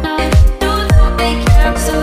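Background music with a heavy bass beat about twice a second and a melody over it, in an electronic dance style.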